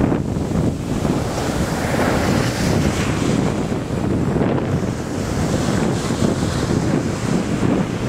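Sea waves breaking and their foam washing up a sandy beach in a storm, the hiss of the wash swelling twice, with gusty wind rumbling on the microphone.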